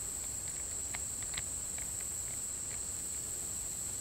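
Steady high-pitched insect chorus in late-summer woods, with a few faint scattered clicks.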